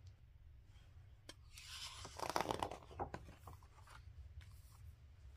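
A page of a hardcover picture book being turned: a soft papery rustle about two seconds in, with a few light taps and clicks from the book being handled.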